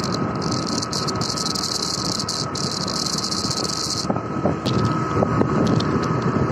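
Wind rumbling and buffeting on a phone's microphone while moving outdoors, with a faint steady high tone underneath and a hiss that drops away about four seconds in.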